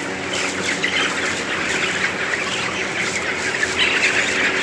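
A large flock of chickens in a poultry house: a dense, continuous chatter of clucks and cheeps from many birds, over a steady low hum.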